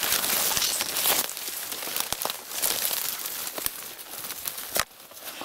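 Dry reed stems and crusty snow rustling and crunching close to the microphone, a dense crackling rustle full of small clicks, with one sharper snap near the end before it quiets down.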